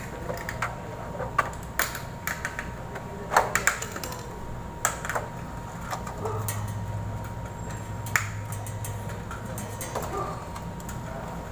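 Scattered clicks and light knocks of sheet-metal fluorescent fixture housings being handled and fitted together, with a low hum for a few seconds in the middle.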